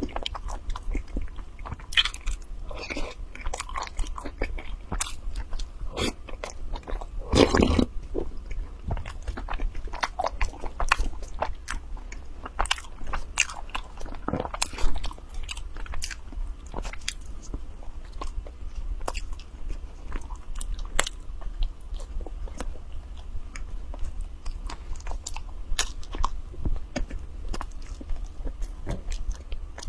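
Close-miked mouth sounds of someone biting and chewing soft white loaf bread, some of it dipped in milk: a dense run of small wet clicks and smacks. There are two louder, fuller moments, about seven and fourteen seconds in.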